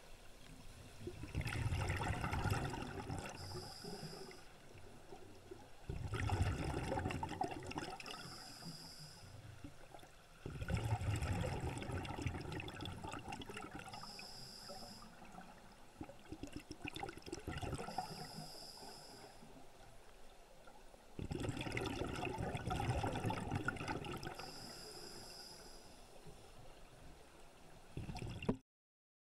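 Scuba diver breathing through a regulator underwater: a short hiss on each inhale, then a burst of exhaled bubbles gurgling and fading, about every five seconds. The sound cuts off abruptly near the end.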